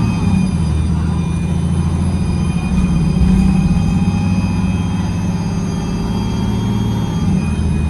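Bus engine and drivetrain heard from the back seat while under way, a steady low drone with whining tones above it. The engine note drops right at the start and rises again near the end.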